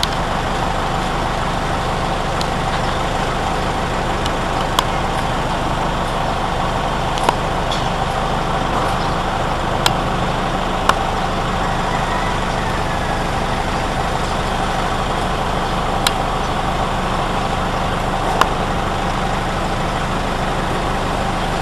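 A steady engine-like drone, like a motor idling, with about half a dozen sharp knocks at irregular intervals.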